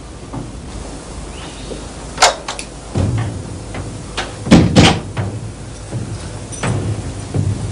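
A door being opened and shut: a few sharp clicks and knocks from the latch and the door, the loudest two in quick succession about halfway through.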